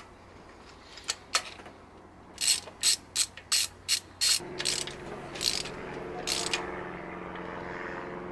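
Ratchet wrench clicking in a run of sharp, evenly spaced clicks as the last spark plug is wound into the engine's cylinder head. A steady low drone starts in the background about halfway through.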